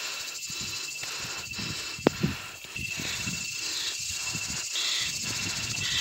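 Cicadas buzzing in a steady, high chorus. Soft thuds recur about twice a second underneath, and there is one sharp click about two seconds in.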